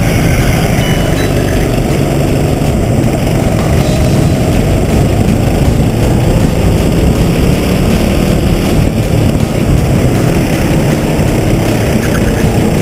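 Go-kart engine running hard while racing, heard onboard the kart as a loud, dense, steady rumble, its note rising and falling slightly through the corners.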